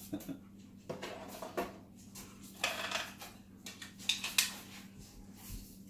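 3D-printed plastic parts and their packaging being handled: irregular light knocks and clatter, with a longer stretch of rustling about halfway through.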